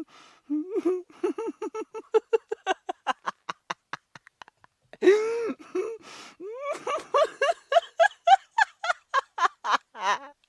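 A person laughing in two long bouts of rapid, evenly spaced 'ha-ha-ha' pulses. Between the bouts, about five seconds in, there is a longer drawn-out voiced breath.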